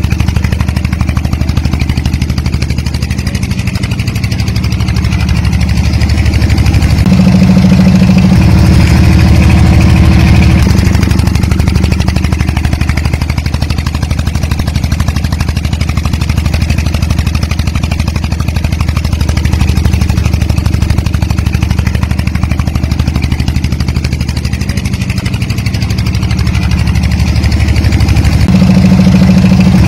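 Small stationary diesel engine running steadily at a low idle, its tone shifting slightly every few seconds.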